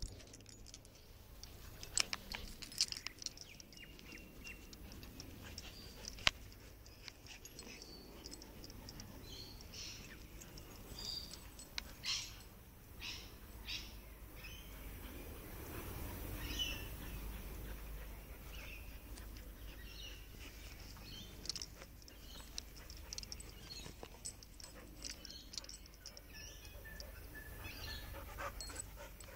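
Border Collie and Golden Doodle puppy playing tug with a cloth tracksuit, with scattered short dog noises, scuffles and knocks, over a steady low rumble. Birds chirp in the background.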